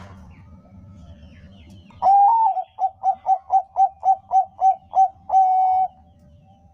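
Zebra dove (Bangkok-type perkutut) singing one full song phrase. It opens with a long coo about two seconds in, then a quick run of about ten short clipped notes at roughly four a second, and closes on a long held note.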